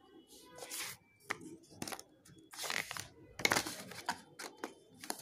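Clear plastic wrap crinkling and rustling as it is handled in short bursts, with sharp clicks and knocks from the cardboard phone box.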